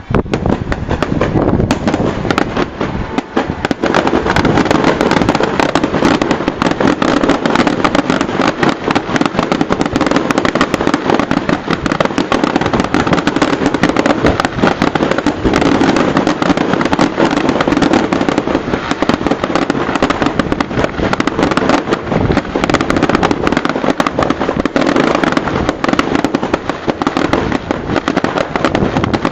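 Fireworks display: a dense, continuous barrage of bangs and crackling bursts, building within the first few seconds and keeping up to the end.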